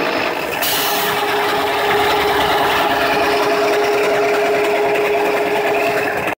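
Multi-spindle drilling machine running, its twist drills cutting into a cast valve body: a loud, steady machine sound with one held tone, and a grinding hiss that grows stronger about half a second in.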